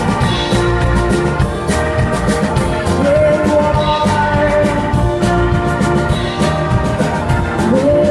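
Live band playing: a steady drum beat under a sustained melody line that slides up and down in pitch.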